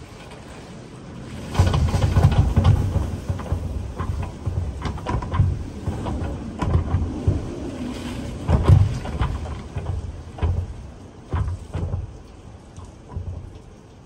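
Typhoon wind gusts buffeting the microphone in driving rain. The rumble surges in about a second and a half in and again near nine seconds, then comes in shorter gusts and eases toward the end, over a steady hiss of rain with scattered sharp drop impacts.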